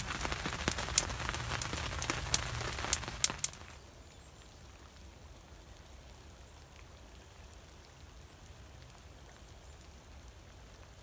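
Rain falling on a tarp shelter, with a steady patter and several sharp, loud drop strikes. It cuts off abruptly about three and a half seconds in, leaving only a faint steady hiss.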